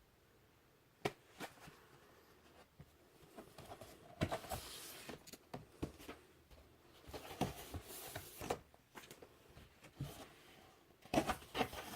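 Rustling and sharp clicks of a shrink-wrapped vinyl LP being opened and handled, with plastic wrap and paper crinkling in two short stretches.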